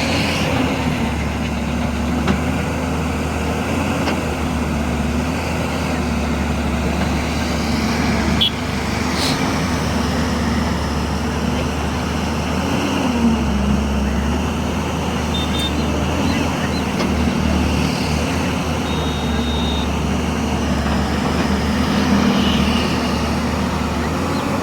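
JCB 205 excavator's diesel engine running steadily under working load, its pitch dipping and rising slightly as the hydraulics take load, with a couple of sharp knocks about eight or nine seconds in.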